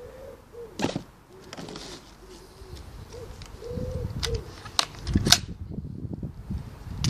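A dove cooing in short, repeated low notes, with several sharp clicks and knocks of equipment being handled; the loudest knock comes a little past five seconds in.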